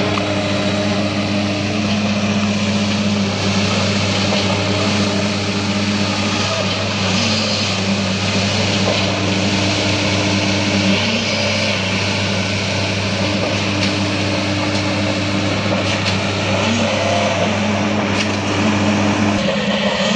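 Diesel engine of a concrete mixer truck running steadily, a low hum with a higher tone that comes and goes every few seconds, over a hiss; the low hum drops away near the end.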